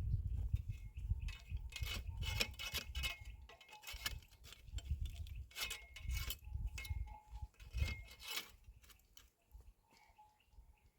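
Small metal bells clinking irregularly, with short ringing notes among scattered knocks and clicks over a low rumble.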